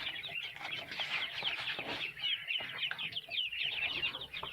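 A flock of chickens clucking, with many short calls overlapping without a break.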